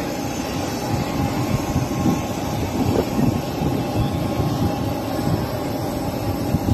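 Steady noise of aircraft on an airport apron beside a parked turboprop airliner, a dense low rumble with a faint steady whine above it.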